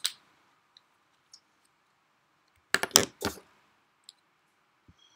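Clicks and knocks from small objects being handled: a sharp click at the start, a few faint ticks, then a quick cluster of about four louder knocks about three seconds in.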